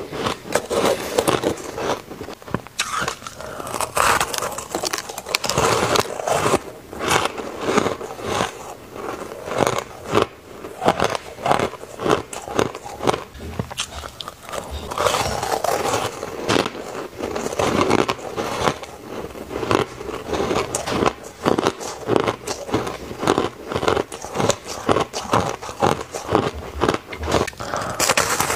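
Teeth biting into and chewing a frosty, sandy-textured block of coloured ice: a continuous run of crisp crunches, several a second.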